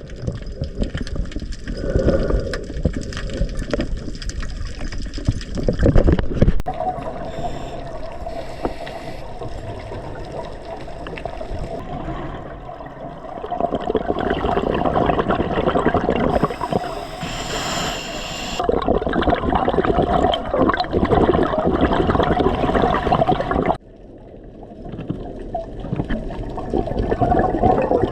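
Scuba diver breathing underwater through a regulator: the rush of each breath and the gurgle of exhaled air bubbling away, breath after breath, with the level swelling and falling.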